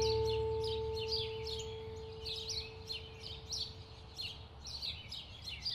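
Small birds chirping: many short, quick chirps, each falling in pitch, repeated several times a second. A last held music note fades out over the first few seconds.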